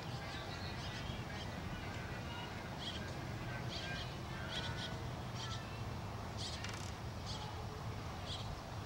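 Birds calling and chirping in short, irregular calls over a steady low background rumble.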